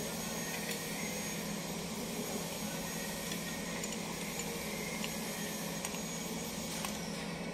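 Kubota D850 three-cylinder diesel engine running at a steady speed, with a few light metal clinks from a wrench on the engine.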